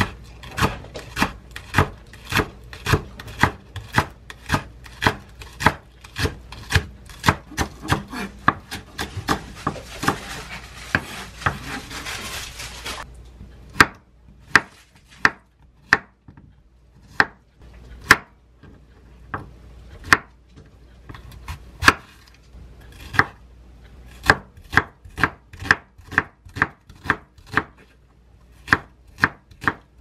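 Chef's knife chopping green onion, Korean zucchini and onion on a wooden cutting board: a steady run of blade knocks on the board, about two to three a second, with a looser stretch around the middle.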